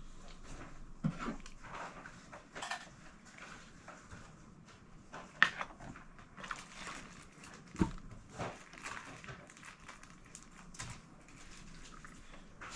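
Scattered small clicks, taps and knocks of hands handling small parts at a desk, over quiet room tone; the sharpest is a click about five and a half seconds in, and there is a low thump near eight seconds.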